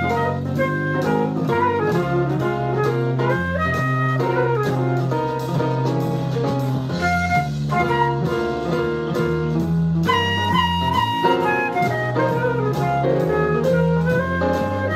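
Flute playing a fast bluesy jazz line, improvising, over a backing track of bass and drum kit.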